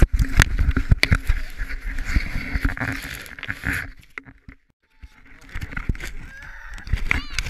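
Toboggan wipe-out in snow: a sled sliding and scraping over packed snow with a jumble of knocks and thuds as the riders tumble and the camera is jostled in snow and clothing. The noise stops suddenly about four seconds in, and after a short near-silent gap there are soft rustles and a brief child's voice near the end.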